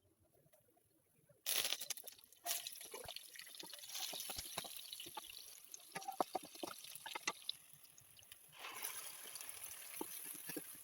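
Water sloshing and trickling with many small splashes and clicks, starting suddenly about a second and a half in and swelling again near the end.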